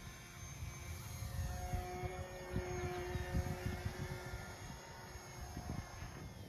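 Small electric-powered foam board RC biplane flying, its motor and propeller giving a steady buzz that grows louder toward the middle and eases off again, with wind rumbling on the microphone.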